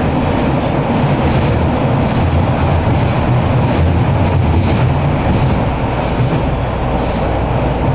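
Toei Ōedo Line linear-motor subway train running through its tunnel, heard from inside the car: a loud, steady low rumble of the moving train.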